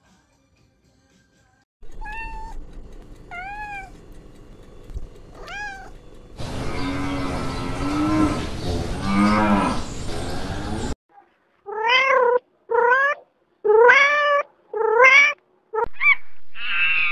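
Cats meowing across several short clips: three separate meows, then a noisier stretch with lower-pitched calls, then a run of repeated meows about one a second.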